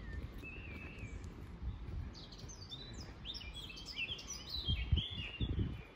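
Small songbirds chirping and twittering in short, quick phrases, busiest in the second half. Under them a low outdoor rumble, with a few heavy low thumps near the end that are the loudest sound.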